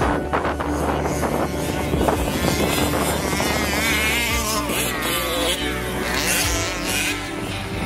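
Small two-stroke petrol engines of several 1/5-scale RC cars running at once, revving up and down with wavering, overlapping pitches as the cars race and jump.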